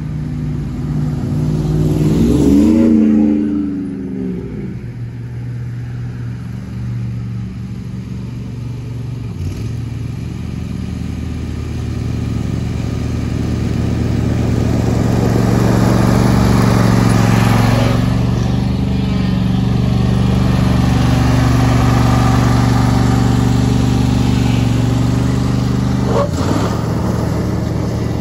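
John Deere S120 riding mower's V-twin engine running steadily with the blades cutting grass. It grows louder as the mower comes close and passes, then fades a little as it moves away. About two to three seconds in, a car passes on the road with a brief rise and fall in pitch, the loudest moment.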